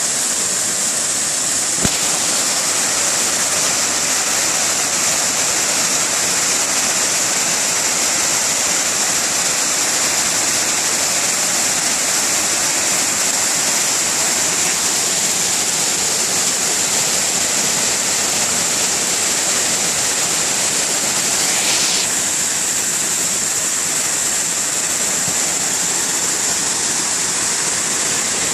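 Waterfall rushing, a steady loud hiss of falling water. A single click about two seconds in.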